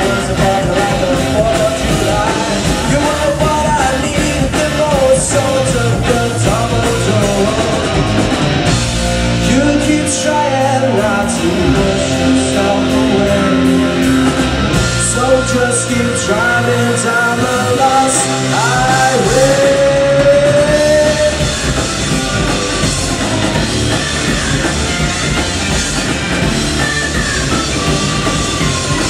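Live rock band playing: electric guitars and drums, with a male lead singer. The bass end thins out for several seconds midway.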